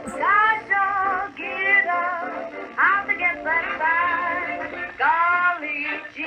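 An old recorded song, a singer with vibrato over a band, playing through a vintage Bakelite tabletop radio's speaker as it receives a low-power AM transmitter kit. The sound is narrow and thin, with little bass or treble.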